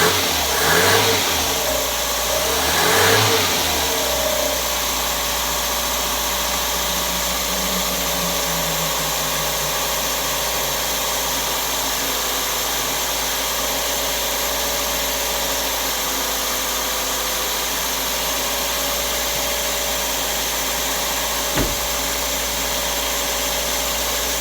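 Carbureted engine running on its first start after sitting six months: it is revved a few times in the first four seconds, then settles into a steady idle. A single sharp click comes near the end.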